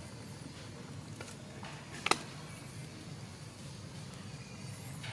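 A single sharp knock about two seconds in, over a steady low background hum, with a few fainter taps around it.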